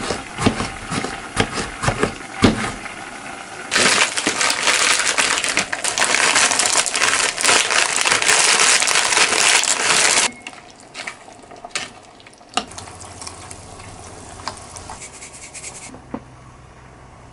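Food preparation on a cutting board. A few sharp knife knocks come first, then about six seconds of loud, dense crunching and scraping, then a stretch of quieter, scattered light clicks.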